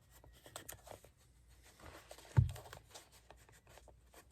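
Leather and tools handled on a workbench: light rustling and small clicks, with one dull thump about two and a half seconds in.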